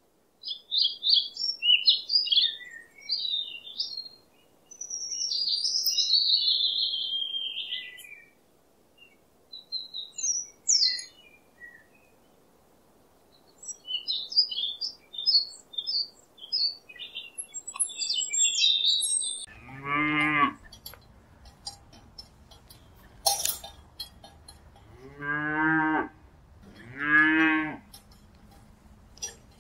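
Small birds chirping in quick, high bursts for about the first two-thirds, then a cow mooing three times near the end.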